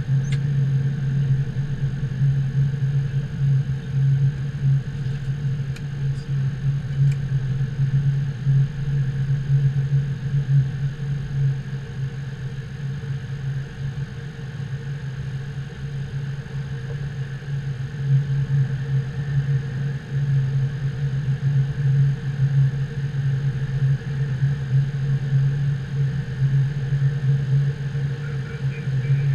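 Steady flight-deck noise of a Boeing 777-200 taxiing slowly to the gate with its engines at idle: a low, even drone with a faint high whine above it.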